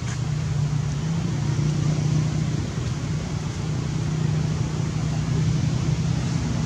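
A steady low engine hum, like a motor vehicle running, with no change in pitch.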